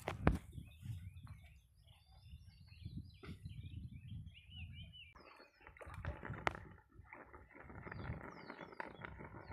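Birds chirping outdoors in a run of short calls, wavering notes in the first half and quick falling whistles in the second half. A sharp knock sounds just after the start and another at about six and a half seconds.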